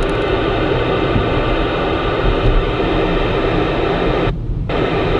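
CB radio hissing with static through its speaker, squelch open on a quiet channel, over the car's low road rumble. About four seconds in, as the radio's knob is turned, the hiss cuts out for a moment, then comes back.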